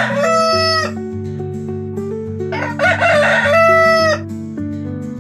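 Rooster crowing twice, each crow a long call that ends on a held note, over background music.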